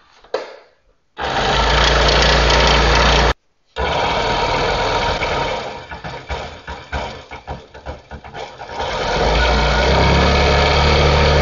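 Ryobi variable-speed scroll saw running with no workpiece, its blade going up and down. It starts about a second in and drops out briefly after about three seconds. It slows and goes quieter in the middle as the speed is turned down, then speeds back up to full about nine seconds in.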